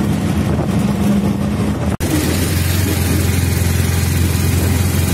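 Road vehicle engine running steadily with road noise. About two seconds in there is a sudden cut, after which the engine hum is lower and steady.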